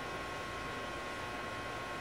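A stationary JR 209-500 series electric train waiting at a station, its onboard equipment running with a steady hum and hiss and a few constant high whining tones.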